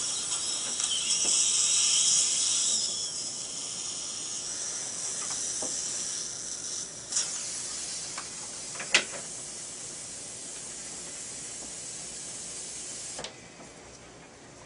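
Steady hiss of dental surgical equipment during implant-site drilling with a drill extension. It is loudest in the first three seconds, then eases and stops abruptly near the end, with a few faint clicks in between.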